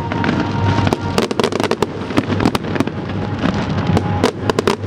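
Fireworks display: shells bursting in quick, irregular succession, a dense run of bangs and crackles.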